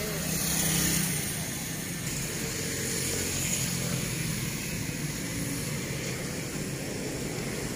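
Steady outdoor background noise: a low rumble under a high hiss, with no distinct events.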